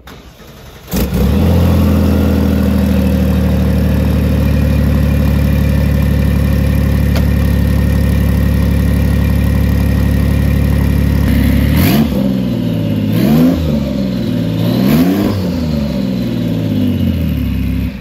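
Gunther Werks 993-based Porsche 911's twin-turbo flat-six starting about a second in and idling steadily. Near the end it is revved twice, each rev rising and falling.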